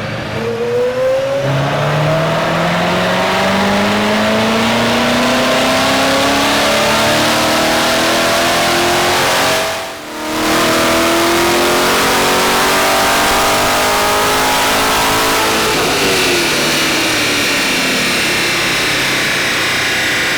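Supercharged C7 Corvette V8 with an E-Force blower making a full-throttle pull, its pitch climbing steadily as it revs up. There is a brief break about halfway through, then a second climb, and the revs fall off over the last few seconds.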